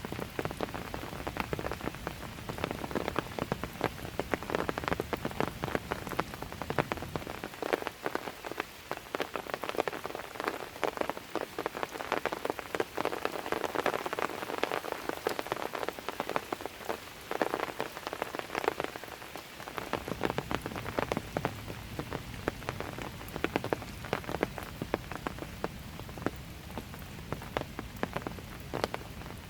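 Calm, steady rain falling, a dense patter of individual drops hitting surfaces. A low rumble underneath falls away about a quarter of the way in and returns about two-thirds through.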